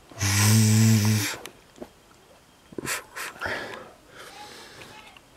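A person's voice making a loud, steady buzzing, hissing sound effect for about a second, followed by a few short breathy mouth noises.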